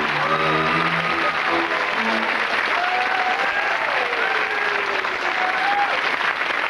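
Studio audience applauding, with closing theme music playing over it for the first two seconds or so.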